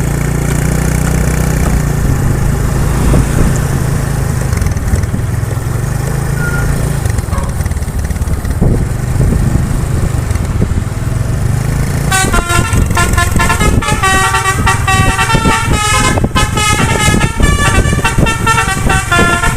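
A bus engine runs with a low, steady drone. About twelve seconds in, the bus's telolet musical horn starts playing a quick melody of short notes that keep changing pitch.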